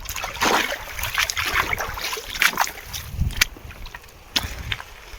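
Splashing and sloshing of someone wading through shallow water, in uneven bursts with a few sharp clicks.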